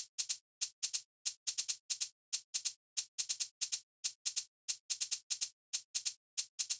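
A run of short, sharp clicks at an uneven pace, often two or three in quick succession, with dead silence between them, like typewriter keys being struck.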